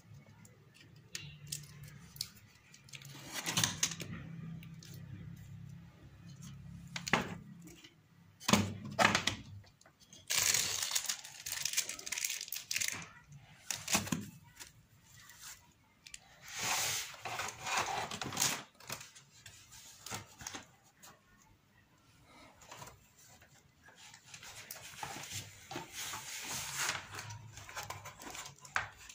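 Hands handling a bare LED TV panel and its cables: scattered clicks and small knocks, with several louder rustling, sliding noises lasting a second or two.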